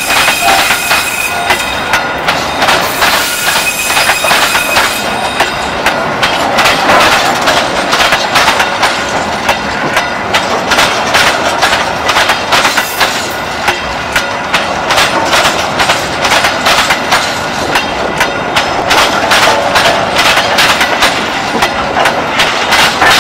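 Empty railway flat wagons rolling past close by: their steel wheels clatter over the rail joints and a track crossing in a fast, continuous run of clicks and knocks. Faint high wheel squeal is heard in the first few seconds.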